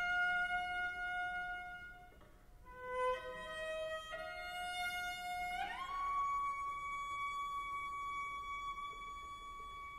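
Five-string Baroque violoncello piccolo played solo with the bow in slow, sustained high notes. A long held note, a short gap about two seconds in, and a few shorter notes lead to an upward slide just before six seconds into a long high note that slowly fades.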